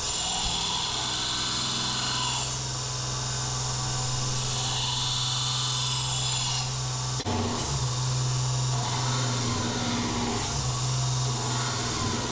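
Power grinder running and grinding the steel of a rebar knife: a steady motor hum under a hiss of metal being ground, with a brief break about seven seconds in, after which the hum wavers as the load changes.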